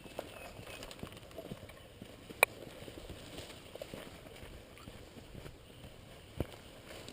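Footsteps moving through a wooded hillside, with irregular crunches and crackles of the forest floor, one sharp snap about two and a half seconds in and a dull thump near the end.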